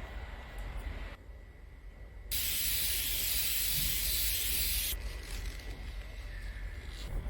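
A spray hissing steadily for about two and a half seconds, starting about two seconds in and cutting off suddenly.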